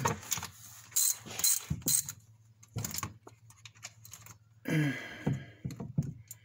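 Hand ratchet wrench clicking in several short bursts as a bolt under the ATV is run in and tightened.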